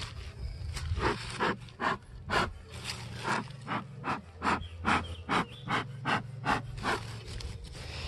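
A person breathing hard and fast close to the microphone, about two or three breaths a second.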